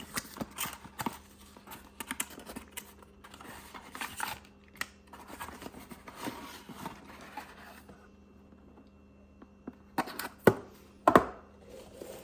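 Unboxing of a Lang ratcheting brake caliper press: rustling, scraping and scattered clicks of the packaging and tool being handled. After a short pause, a few sharp knocks near the end.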